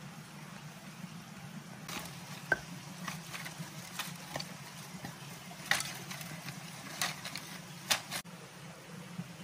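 Hands working in dry forest litter: scattered cracks, snaps and rustles of dry leaves and sticks, the sharpest a few seconds in and near the end, over a steady low hum.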